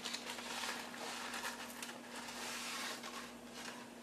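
Water at a rolling boil in a large stockpot: a steady bubbling hiss with irregular crackle.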